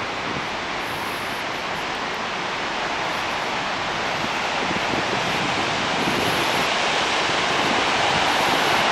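Flood release at Kawaji Dam: water pouring from the arch dam's outlets after typhoon rainfall, heard as a steady rushing roar that grows slowly louder.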